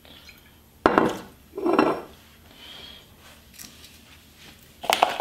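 Glass bottle and small measuring cup handled and set down on a stone kitchen counter: a sharp knock about a second in, a louder, duller clatter just after, and another clink near the end.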